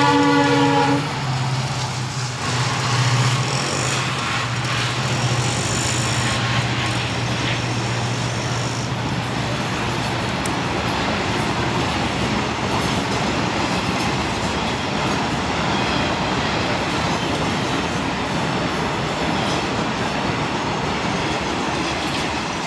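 Horn of a WDP4D diesel locomotive cutting off about a second in, then the locomotive's low engine hum as it passes, which fades out around ten seconds in. The express's coaches keep rolling past with a steady rushing rumble of wheels on rails.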